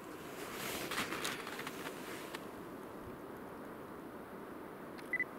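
Faint steady rumble of a distant 2TE116 diesel locomotive. Rustling starts about half a second in and dies away by two and a half seconds, and a short high peep comes near the end.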